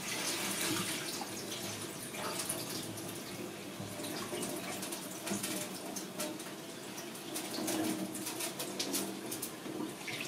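Kitchen tap running and water splashing in a sink as rice is washed.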